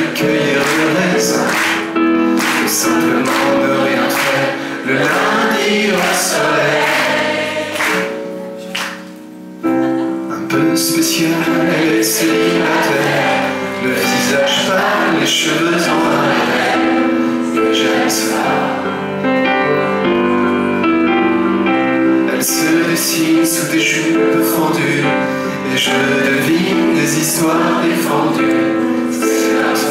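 An audience singing along together to live piano accompaniment, many voices carrying the tune over steady piano chords. About eight seconds in, the music drops briefly, then comes back in full.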